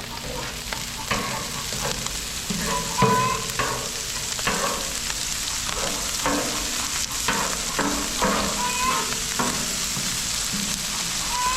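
Chicken fried rice sizzling on a Blackstone flat-top griddle with a steady hiss, while a metal spatula stirs it, scraping and clinking against the steel surface every half second or so.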